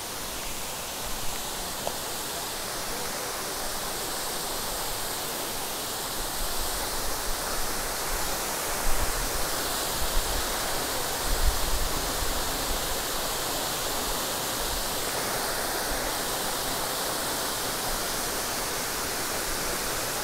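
Steady rushing hiss of a waterfall, with a few low thumps near the middle.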